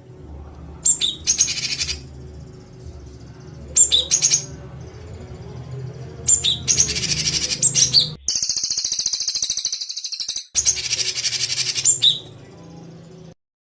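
A recorded songbird tutor call of harsh, rapid-fire 'shooting' notes, repeated in five high-pitched bursts with short pauses between them. The fourth burst is a longer, higher trill. A steady low hum from the recording runs beneath and cuts off near the end.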